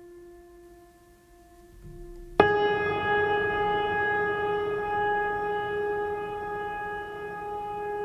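Background music of sustained wind-instrument-like tones: a faint held note, then a much louder, fuller held note that comes in suddenly about two and a half seconds in and keeps sounding.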